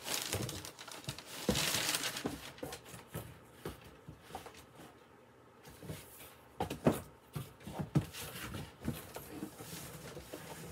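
Rustling and crinkling of packing material with scattered knocks, the sharpest about seven seconds in: someone rummaging for more books to unbox.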